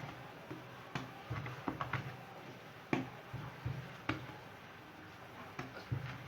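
Scattered light taps and knocks as hands shape and set down portions of dough on a kitchen work surface, over a low steady hum.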